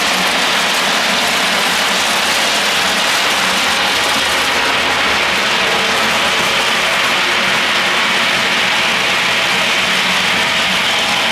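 Crushed-stone track ballast pouring from the chutes of slowly passing ballast hopper wagons and showering onto the trackbed: a steady, dense rattle and hiss of falling stones, like heavy rain.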